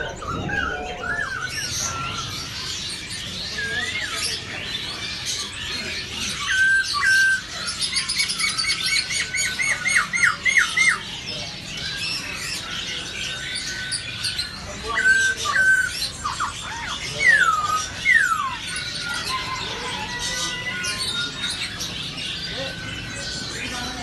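Many caged songbirds calling at once: a dense chorus of chirps, whistles and trills. It includes a run of quick repeated notes about eight to eleven seconds in and several sharp falling whistles around seventeen to eighteen seconds.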